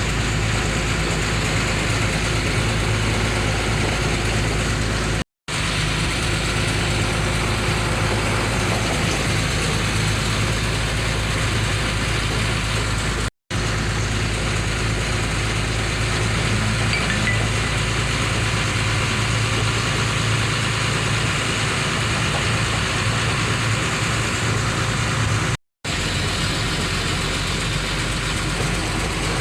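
A vehicle engine idling steadily under a dense hiss, in several stretches broken by three brief drops to silence.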